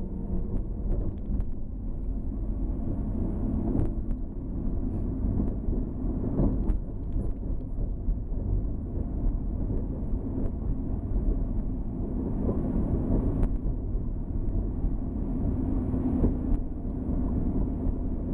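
A car driving on a paved mountain road, heard from inside the cabin: a steady low rumble of engine and tyres, with a few light knocks.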